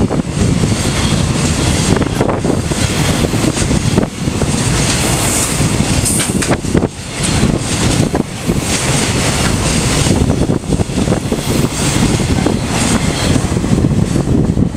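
Container wagons of a freight train rolling past at speed: a loud, continuous rumble and clatter of steel wheels on the rails.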